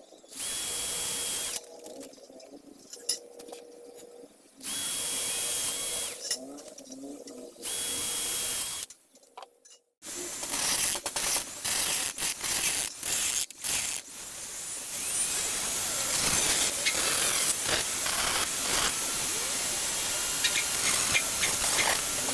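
A cordless drill drilling through a thin plate in three short bursts of about a second each, with a steady high motor whine. About ten seconds in, a small corded rotary tool takes over, grinding continuously with scraping and ticking as its bit works the hole wider.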